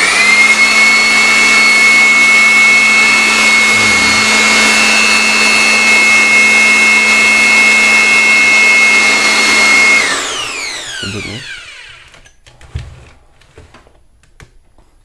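Mailtank SH-15 electric hand blower, set up for suction with its dust bag fitted, spinning up and running at full speed: a loud steady high-pitched whine over a rush of air. About ten seconds in it is switched off and winds down with a falling whine, followed by a few light handling clicks.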